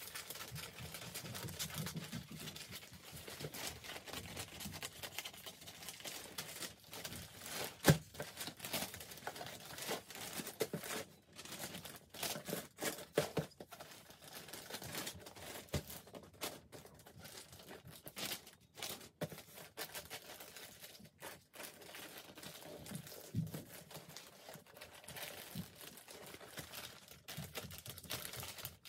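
Wrapping paper rustling and crinkling as a gift is wrapped by hand, with many small crackles and one sharper, louder knock about eight seconds in.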